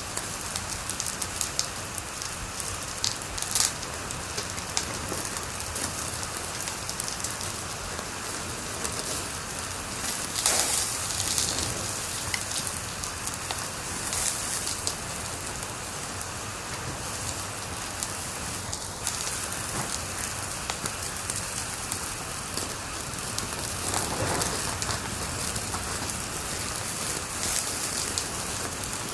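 Wood fire crackling in a fireplace: a steady hiss with frequent small snaps and occasional louder pops, the loudest cluster about ten seconds in.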